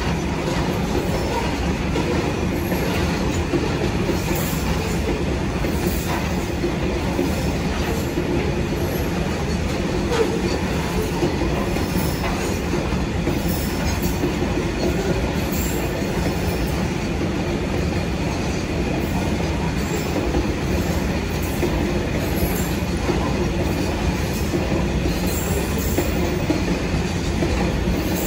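A train running steadily along the rails: a continuous, even rumble of wheels on track with a faint high squeal.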